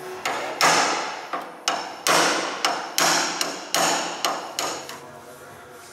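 Hammer blows on the steel rear corner panel of a Toyota AE86: about a dozen sharp, ringing metal-on-metal strikes at an uneven pace, stopping about five seconds in.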